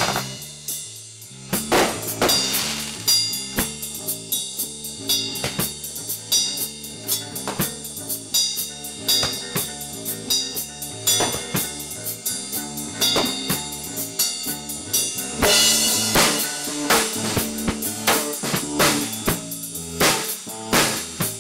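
Rock band music: a drum kit playing a steady beat with snare and bass drum, over a moving bass guitar line and electric guitar.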